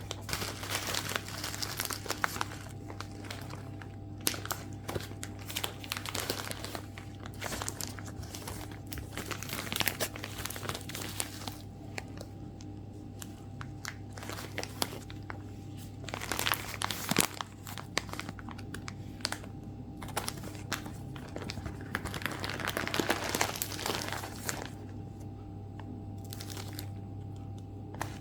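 Irregular crinkling and rustling, like plastic or paper being handled, over a steady low hum.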